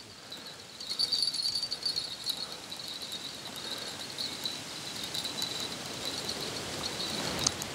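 Insects chirping steadily in the summer grass, a high, fluttering trill, with one sharp click near the end.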